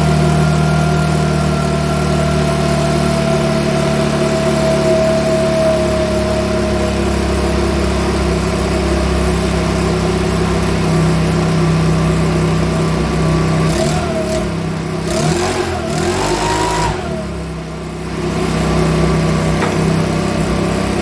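Makita BHX2500 leaf blower's small four-stroke engine running steadily with the choke off. Late on, its note wavers and briefly dips before picking up again.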